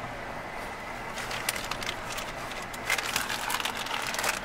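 Jeep rolling over a rough gravel-and-dirt trail, heard from inside the cabin: a steady rumble of tyre and road noise, with a run of sharp crackles and clicks from about a second in.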